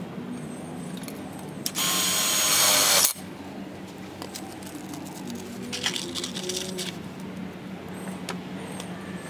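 Impact drill with a 5/16" nut driver running a self-drilling hex-head screw into a steel fence pole to fix a bracket: one loud run of about a second and a half that stops abruptly, then a shorter, fainter run a few seconds later.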